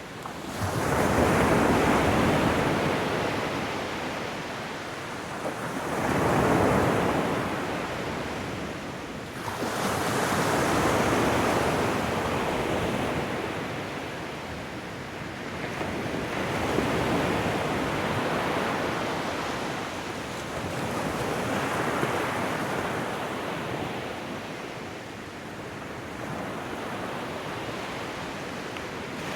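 Ocean surf: waves break and wash in, a steady rush that swells and ebbs every four to five seconds.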